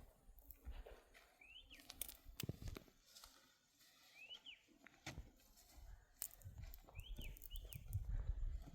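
A bird's short high chirps, four in all, each rising then falling quickly, with faint scattered clicks between them.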